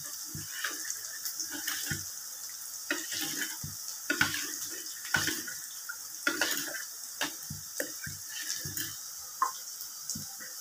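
A spoon stirring a watery tamarind and chilli kulambu base in a stainless steel bowl: liquid sloshing, with irregular light clinks and scrapes of the spoon against the bowl.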